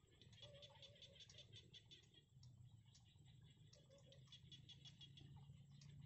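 Faint bouts of rapid ticking chatter from small bittern chicks begging in the nest, twice in runs of about ten ticks a second, over a low steady hum.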